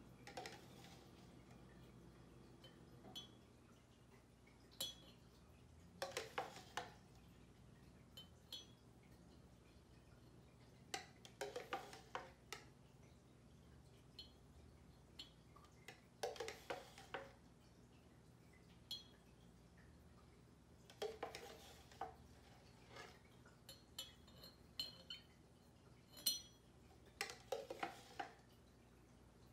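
Metal spoon clinking against a glass jar in short clusters every few seconds, as coloured sugar water is spooned into it layer by layer.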